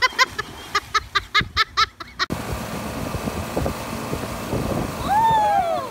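Short, rapid voice bursts for about two seconds, then a sudden change to a Johnson outboard motor running at speed with wind and rushing water. Near the end comes a loud, drawn-out shout that rises and falls.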